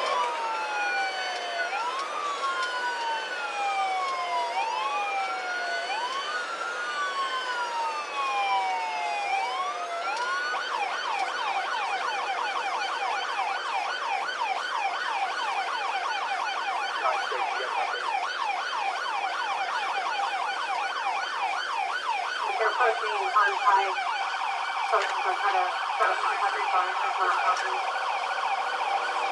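Police car electronic siren sounding a wail, slow rises and falls about every two seconds, then switching about ten seconds in to a fast yelp that runs on rapidly.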